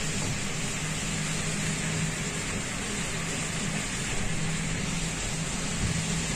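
A vehicle running steadily at low speed on a wet road: a continuous low hum with an even rushing noise over it.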